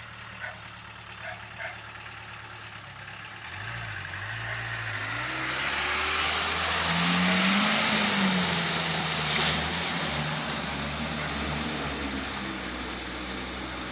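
An off-road vehicle's diesel engine idles, then pulls harder with its note rising from about three and a half seconds in as it drives off. A rushing noise builds, is loudest midway and eases toward the end, with one sharp click near the peak.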